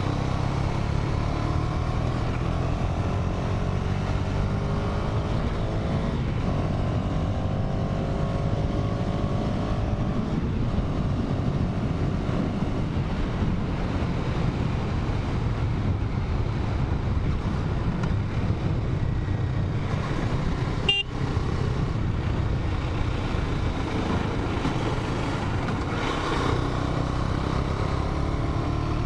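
KTM 250 Duke's single-cylinder engine running under way, its pitch rising repeatedly as it pulls through the revs. About two-thirds of the way through there is one short, sharp sound.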